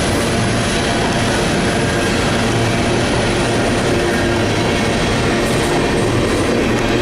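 Empty Union Pacific coal train rolling past: a loud, steady rumble of wheels and cars on the rails.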